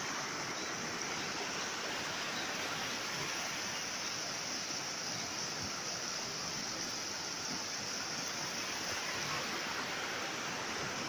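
A rocky stream rushing over small rapids: a steady, even rush of water with no breaks.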